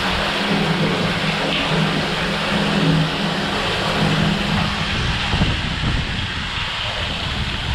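Heavy rain, a loud, dense, steady hiss. A low steady hum runs under it for the first five seconds or so.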